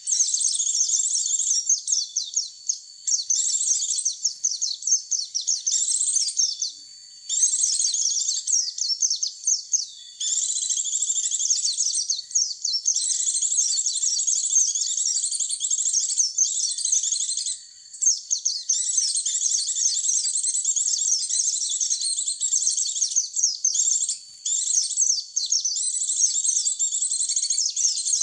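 White-eye (pleci) song: rapid, high-pitched twittering chirps in runs of a few seconds with short breaks between them. This is a lure call recording meant to draw white-eyes in.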